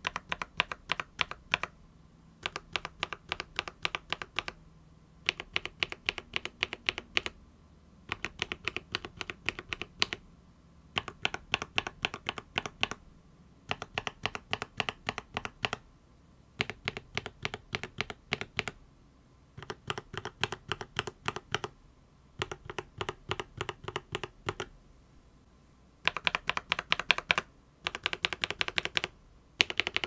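Linear mechanical keyboard switches (Akko and MonsGeek switches with clear housings, mounted under keycaps in a full keyboard) being typed in short runs of rapid keystrokes. The runs come every two to three seconds, with brief pauses between them.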